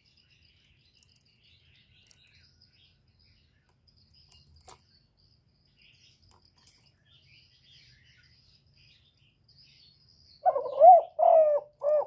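Faint high chirping of small birds, then near the end a spotted dove's loud cooing phrase of about three low notes.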